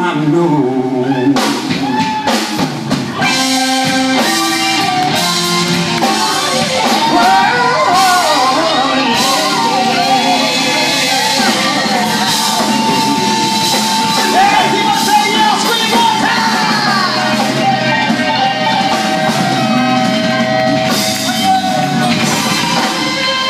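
Live band playing a slow blues jam: two men singing over electric guitars, a drum kit and keyboard.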